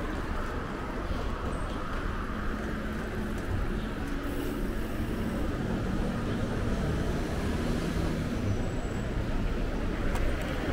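Road traffic noise heard from a moving bicycle, with wind rumbling on the microphone. A passing vehicle's engine hum rises and fades in the middle.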